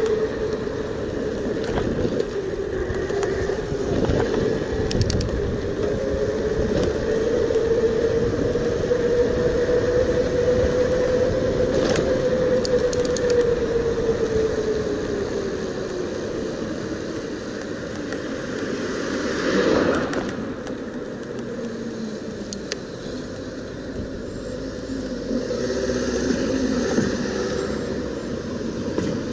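Bafang BBS02 mid-drive e-bike riding fast, with wind rushing on the microphone and a steady whine from the drive. Past the middle the whine drops in pitch and fades as the bike slows almost to a stop.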